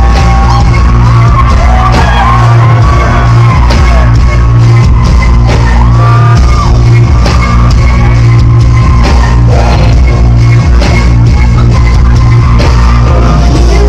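Loud live pop concert music with a heavy, steady bass and sustained tones, with some shouting or singing over it.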